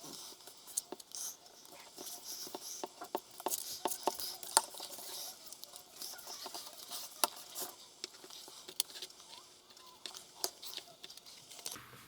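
Paper and cardboard being handled and cut out with scissors: irregular small snips, clicks and rustles.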